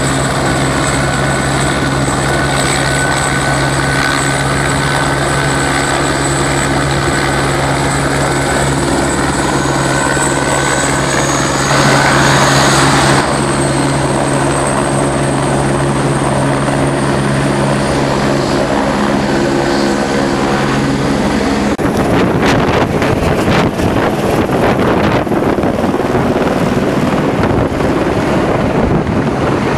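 Twin-turboprop airplane, a de Havilland Canada DHC-6 Twin Otter, running close by with a steady turbine whine that swells briefly about twelve seconds in. About twenty-two seconds in the sound changes to the rapid chop of a helicopter's rotor as it flies low past.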